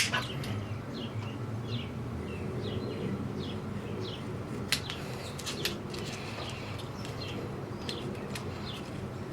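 A bird chirping over and over, short falling chirps about two a second, with a few sharp clicks of work being handled, the loudest about halfway through.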